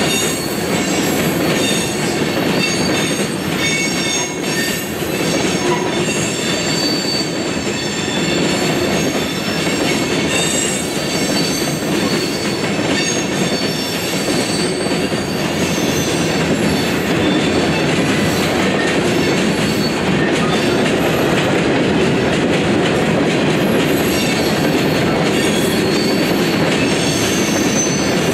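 Long freight train of open-top hopper cars rolling past: a steady rumble and clatter of wheels on the rails, with a thin high wheel squeal coming and going above it.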